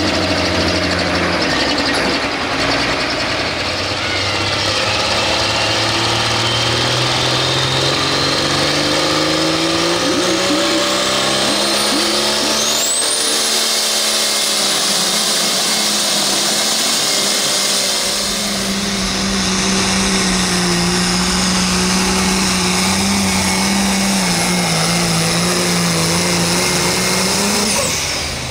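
Light limited super stock pulling tractor's turbocharged diesel engine run hard through a pull under load. The engine note climbs over the first dozen seconds with a high whine rising alongside it, then holds high and steady before dropping away near the end.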